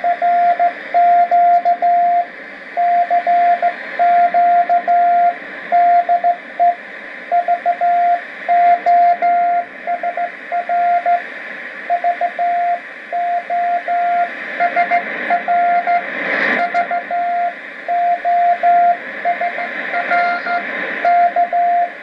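Morse code sent as a steady, mid-pitched keyed tone of short and long elements, heard through a shortwave radio receiver over a constant background of hiss and static. A brief static crash comes about two-thirds of the way through.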